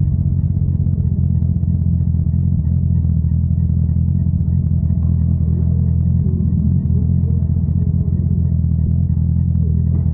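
Honda CBR650R's inline-four engine idling steadily through an aftermarket Akrapovič exhaust, a low, even note.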